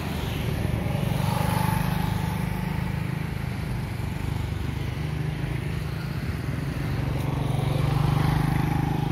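Motorcycles passing on the road over a steady low engine hum. The engine sound swells as one goes by about two seconds in, and again near the end.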